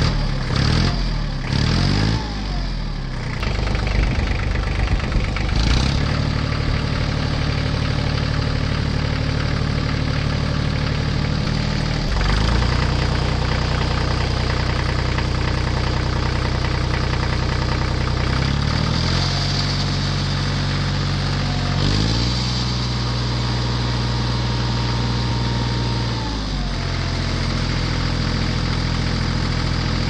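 Tractor engine revving up and down quickly for the first few seconds, then running steadily, its pitch shifting up or down several times.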